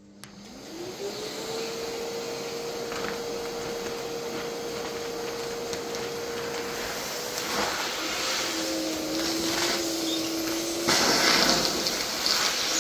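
Vacuum cleaner (Hoover) switched on, its motor winding up to a steady whine as it sucks the air out of a plastic bag of fine softwood sawdust. About eight seconds in the pitch shifts and a second tone joins as the airflow changes, with louder rushes of air near the end.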